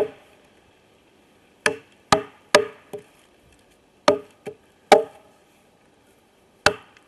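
A wooden baton knocking on the spine of a heavy knife to split a stick (batoning): about nine sharp knocks, each with a short ringing note, coming in irregular groups of two or three.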